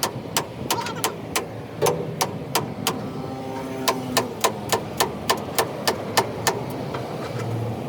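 Repeated hammer blows on metal, about three strikes a second in runs with short pauses, over steady background noise.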